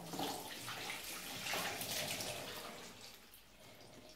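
Water pouring and splashing, a rushing spatter that runs for about three seconds and fades out near the end.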